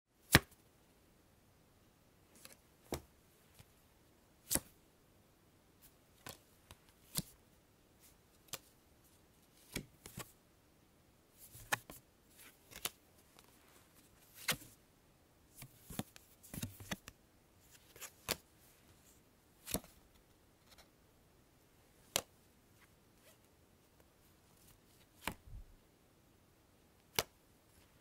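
Playing cards being drawn one at a time from a deck: short, sharp snaps and flicks at irregular gaps of a second or two, some with a brief sliding rustle.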